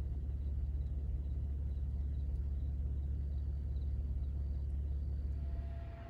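A car driving, its engine and road noise making a steady low rumble that fades near the end.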